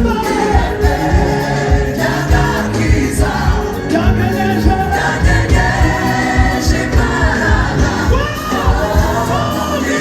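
Gospel choir singing with band accompaniment, over a steady beat.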